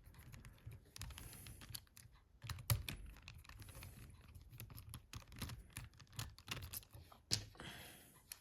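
Faint, irregular small clicks and taps of a small screwdriver and the plastic housing parts of a Siemens C62 mobile phone being handled during disassembly.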